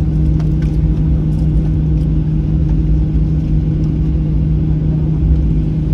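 Steady cabin noise of an airliner taxiing, heard from inside the cabin: a low rumble with a constant hum from the idling jet engines and airframe.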